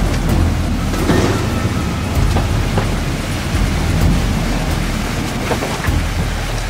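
Off-road vehicle driving through a deep water-filled mud hole: water splashing over a low engine rumble, with a few sharp knocks.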